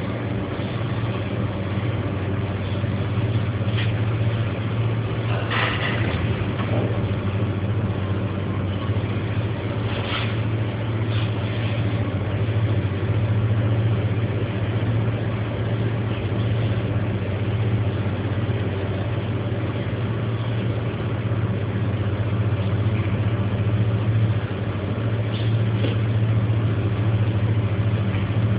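Sandstorm wind and driving rain, a steady rushing noise with a few brief sharper gusts, over a steady low hum.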